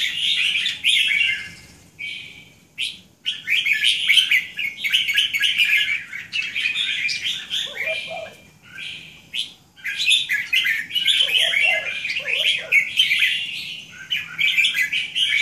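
Caged red-whiskered bulbuls singing: repeated bursts of quick, chirpy song phrases with short pauses between them. A few short, lower calls come in around the middle and near the end.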